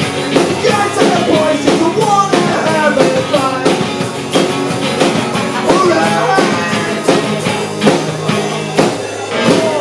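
Acoustic punk band playing live: hard-strummed acoustic guitars and a drum kit, with a male lead vocal sung into the microphone.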